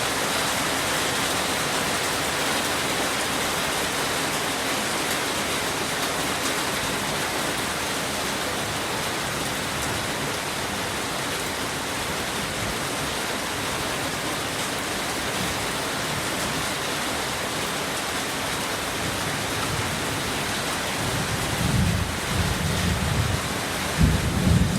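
Heavy rain falling steadily, a dense even hiss, with low rumbles of thunder coming in near the end.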